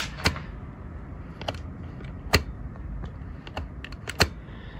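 Irregular sharp clicks and ticks from a Suzuki Bandit 600's carburettor throttle linkage as the throttle is worked by hand with the engine not running. The throttle return is catching, which turns out to be a bent-round Jubilee clip on a fuel hose rubbing against it.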